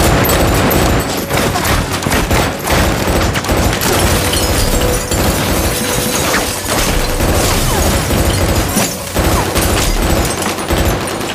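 Heavy rifle fire: a dense barrage of rapid shots with barely a break, starting suddenly.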